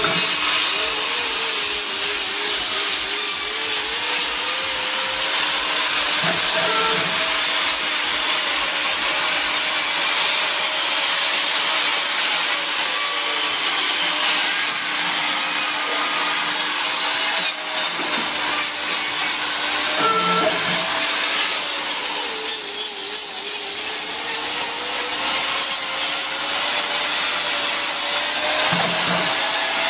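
Angle grinder with a hoof-trimming disc running and grinding cow hoof horn, its motor whine dipping in pitch and rising again twice as it is pressed into the hoof.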